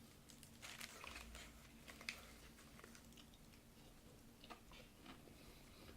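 Faint chewing and mouth sounds of someone eating, with scattered small clicks and crinkles, the clearest about two seconds in.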